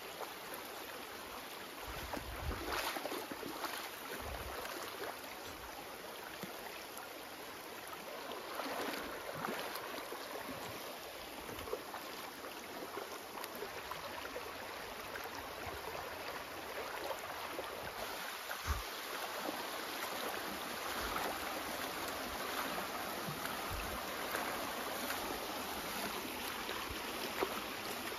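Shallow, rocky stream running steadily, with splashing as a corgi wades through the water, and a few short low bumps.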